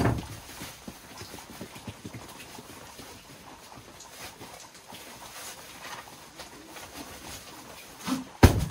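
A rolled camping mat being handled on a wooden deck floor: a thump at the start, faint rustling and small taps, then a louder thump near the end.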